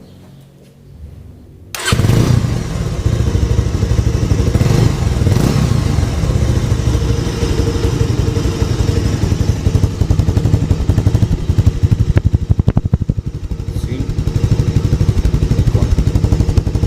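Bajaj Avenger 220 single-cylinder engine starting up about two seconds in and running, its exhaust beat loud and pulsing through a muffler drilled with two holes to change its sound.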